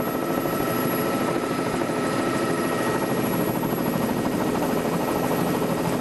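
Steady helicopter engine and rotor noise, heard from aboard the aircraft, running evenly without change.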